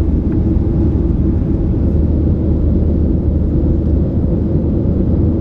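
Cabin noise of a Boeing 737-800 airliner in flight: a steady low drone of its CFM56 jet engines and the airflow over the fuselage, with a strong low hum.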